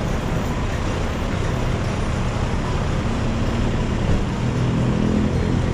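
Steady road traffic noise with a vehicle engine hum that grows stronger and slightly louder in the second half.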